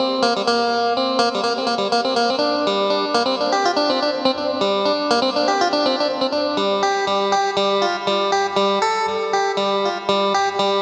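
Yamaha PSR-S770 arranger keyboard playing a guitar voice with effects: a steady, continuous run of plucked-sounding notes.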